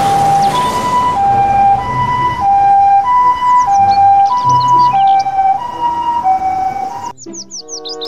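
Japanese ambulance's two-tone electronic siren sounding as it drives past, switching between a high and a low note about every two-thirds of a second over traffic rumble. It cuts off suddenly near the end.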